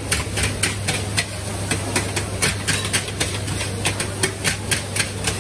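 Rapid, uneven clatter of knocks from hawker-stall food preparation, about three or four a second, over a steady low hum.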